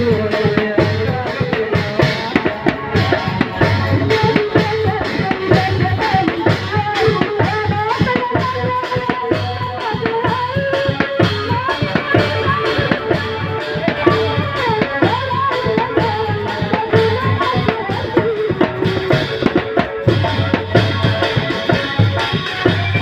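Live dangdut Minang music: drums keep a steady, busy beat under a wavering melody line, with a man singing into a microphone.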